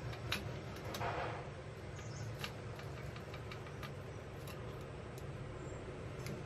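Metal spoon spreading sauce on a slice of bread on a steel plate: soft scrapes and scattered light clicks, including one longer scrape about a second in. A steady low hum runs underneath.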